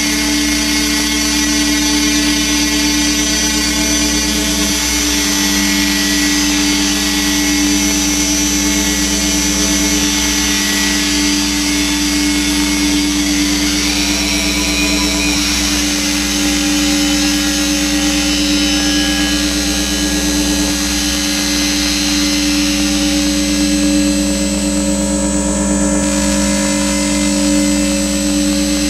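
Dense electronic drone from a drone synth run through Kaoss Pad effects: a steady low hum under many held tones and a hiss. A second low tone joins about five seconds in, and the high hiss thins out near the end.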